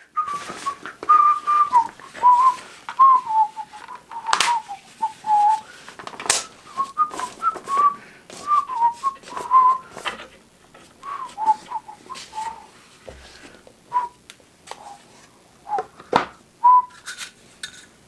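A person whistling a meandering tune of short sliding notes, over scattered sharp clicks, taps and rustles from handling a large-format camera and its fabric bag bellows; the loudest clicks come about four, six and sixteen seconds in.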